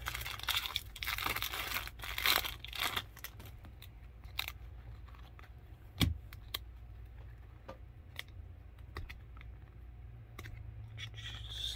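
A baseball card pack's wrapper torn open and crinkling for about the first three seconds, then cards handled and set down with scattered light taps, the sharpest about six seconds in.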